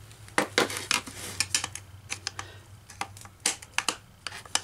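Irregular sharp metal clicks and scrapes of a thin screwdriver or pick working against the rusty steel housing of an electric cooling fan motor, prying at the magnets inside.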